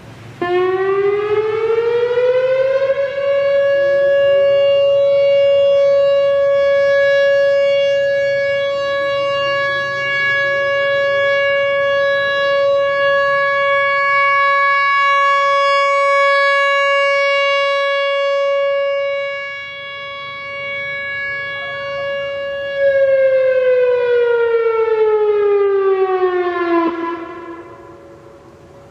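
Whelen WPS-3016 electronic outdoor warning siren sounding its steady alert tone for a test. It winds up over about three seconds to a steady pitch of about 560 Hz and holds there, with a dip in loudness about two-thirds through. Near the end it winds down in pitch and stops.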